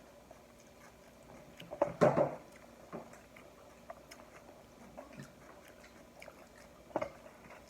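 Chewing and biting at the table, with small clicks and taps from eating, a louder short burst of sound about two seconds in and another near the end.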